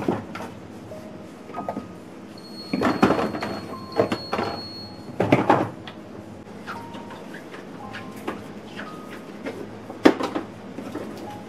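Household handling sounds: cupboard or sliding doors and containers being opened, shut and set down, giving a string of knocks and clicks, the loudest about three, four, five and a half and ten seconds in.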